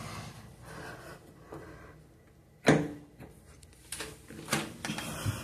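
A few short thumps and knocks in a small room, the loudest about two and a half seconds in, followed by several softer ones near the end.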